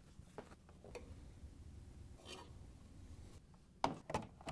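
Faint plastic clicks and rubbing, then two sharper clicks near the end, as a washer's plastic control console is worked free of its locking tab.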